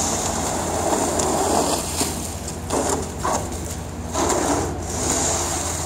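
Two-wheeled rotomoulded plastic snow pusher blade scraping and sloshing wet slush along pavement, in uneven swells with a couple of short sharper scrapes in the middle, over a steady low hum.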